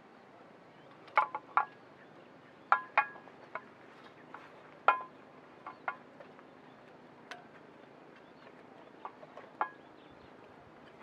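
Metal S-hooks and hanging camp cookware clinking against a black metal hanging rack as gear is hung up: a string of sharp, ringing clinks at irregular intervals, several in quick pairs, the loudest in the first half.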